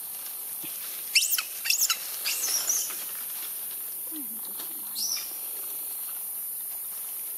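Macaque monkeys giving shrill squeals: a few sharp calls falling steeply in pitch about a second in, a short cluster just after two seconds, and one more call about five seconds in.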